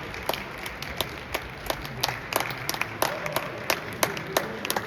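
Sharp clacks at uneven spacing, about three a second, over a steady hall-crowd murmur.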